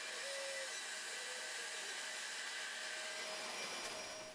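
Bandsaw running steadily while cutting a curved profile through a block of yellowheart; the sound cuts off near the end.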